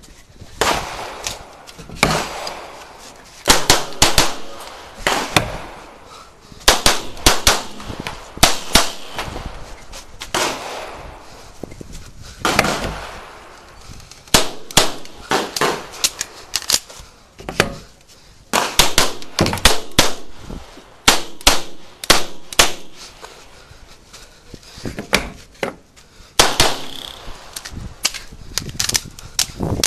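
CZ Shadow 2 9mm pistol firing a stage at rapid pace: strings of shots, often in quick pairs, broken by short pauses as the shooter moves between targets.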